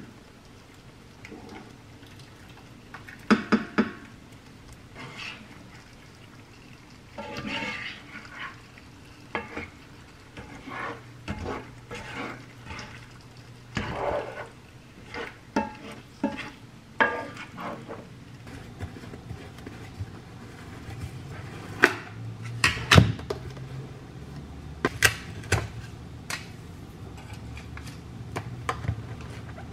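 A slotted spatula scraping and stirring rigatoni, meatballs and tomato sauce in a skillet, in short irregular strokes with a light sizzle. Later come several sharp clinks of dishes and utensils over a steady low hum.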